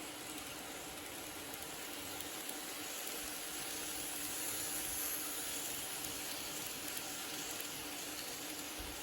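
KATO N-gauge model train of the 285 series running past: a steady, hissing whir of its small motor and wheels on the track that swells in the middle and eases off again.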